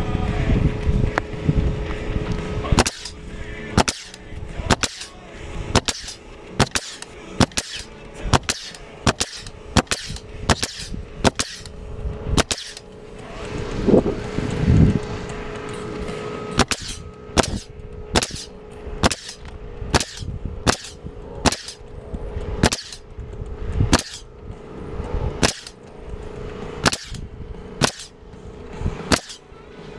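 Pneumatic coil roofing nailer firing nails through asphalt shingles, a sharp shot roughly every half to three-quarters of a second in a steady working rhythm, over a steady low hum.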